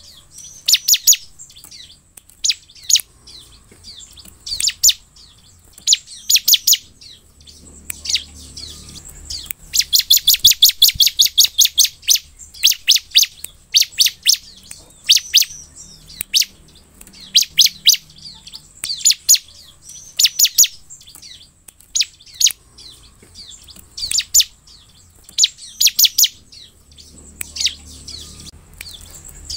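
Bar-winged prinia (ciblek) singing hard: bursts of sharp, high chirps and fast rattling trills, repeated every second or two, with the longest run of rapid notes about a third of the way in.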